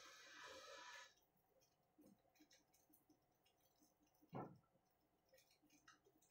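Near silence: faint room tone. A faint hiss cuts off about a second in, then there are a few faint clicks and one soft thump about four seconds in.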